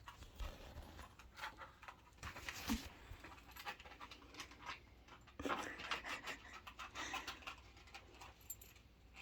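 Faint sounds of a sheprador puppy (German shepherd–Labrador mix) breathing and moving, with scattered light clicks and scrapes. A denser run of quick, rapidly repeating breathy noises comes about five and a half seconds in and lasts about two seconds.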